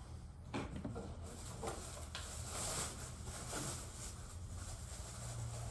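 Scattered light knocks and clatter of small objects being handled, with a brief rustling hiss about two and a half seconds in, over a low steady room hum.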